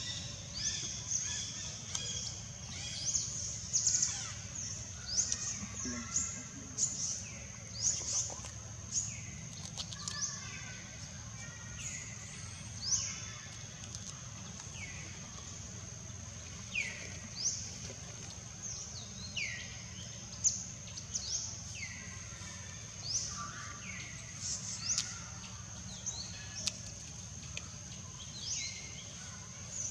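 Outdoor ambience with a bird repeatedly calling in short chirps that fall steeply in pitch, over a steady high-pitched whine.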